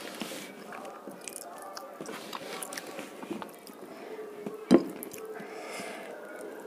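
Hand-eating sounds: chewing and the soft squelch of fingers mashing rice and fish curry on a plate, with small clicks throughout. One sharp knock comes about three-quarters of the way through.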